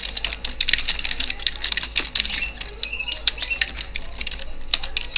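Typing on a computer keyboard: rapid, irregular clicks of keys being struck.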